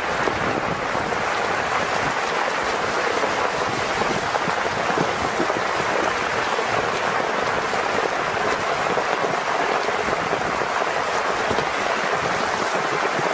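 Steady, loud rush of water without a break or change.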